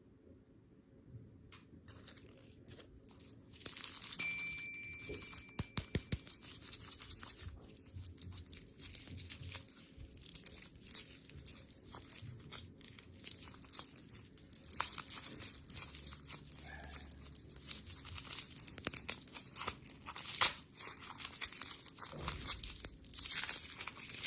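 Plastic candy wrappers being crinkled and torn open, a dense crackling that starts a few seconds in, with one sharper snap near the end.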